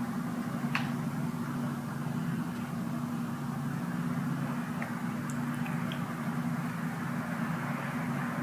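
A steady low mechanical hum with an even rushing hiss over it, and a few faint clicks.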